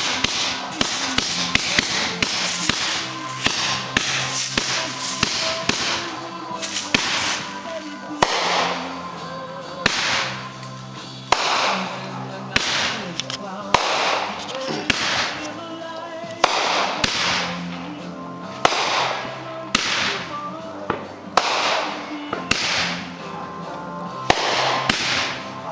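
Consumer aerial fireworks bursting in quick succession, a sharp bang every second or so, some trailing off, with music playing underneath.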